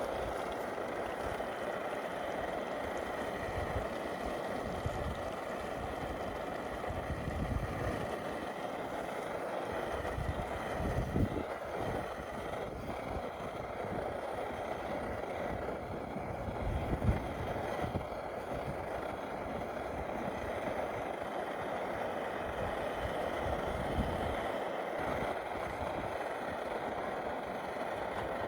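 Optimus 111B pressure stove's burner running with a steady roar, with a few soft low bumps along the way.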